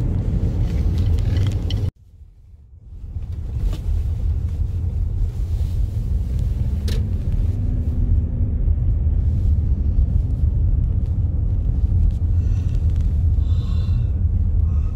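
Low, steady road rumble of a car heard from inside the cabin while driving. About two seconds in, the sound cuts out abruptly, then fades back in over a second or so.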